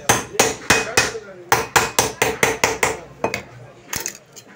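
Meat cleaver chopping repeatedly through fish onto a wooden block, about four sharp strokes a second, thinning to a few separate knocks in the last second or so.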